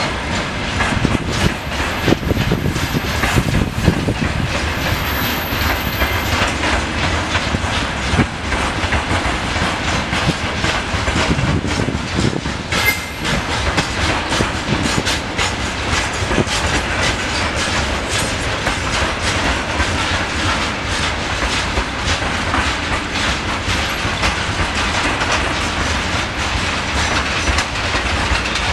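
Covered grain hopper wagons of a freight train rolling past, their wheels clattering steadily over the rail joints in a dense run of clicks.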